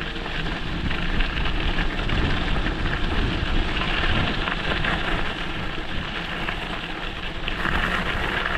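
Tyres rolling over a gravel road, a steady dense road noise picked up by a GoPro Hero 11 mounted on the handlebar.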